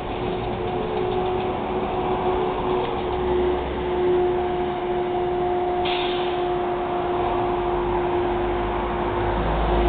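Articulated electric trolleybus driving past close by, with a steady electric hum at a held pitch over the noise of its tyres and street traffic. A short hiss comes about six seconds in.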